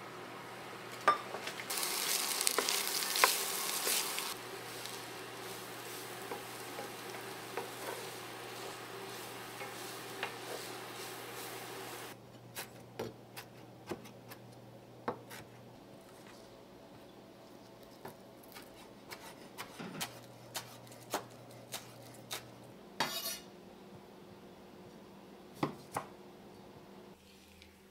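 Corn kernels sizzling in an enameled cast-iron braiser as a metal utensil stirs and clinks against the pan, the sizzle loudest early on. After about twelve seconds the sizzle gives way to a chef's knife chopping cilantro on a wooden cutting board in scattered single strikes.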